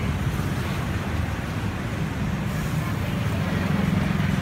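Steady roadside traffic noise with a continuous low engine hum.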